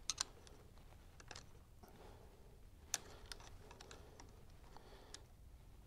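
Faint metal clicks and scraping as a steel pick and fingers work a snap ring into its groove on a Harley-Davidson Sportster clutch, against the compressed diaphragm spring. There are two quick clicks right at the start and a sharper one about three seconds in.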